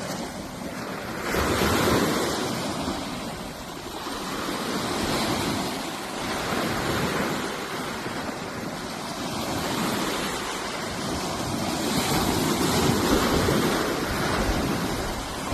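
Sea waves washing in and breaking, a steady rush of water that swells and ebbs every few seconds, with wind buffeting the microphone.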